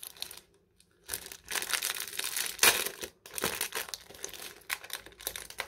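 Small clear plastic packet crinkling and rustling as it is handled and opened by hand, in irregular bursts that start about a second in.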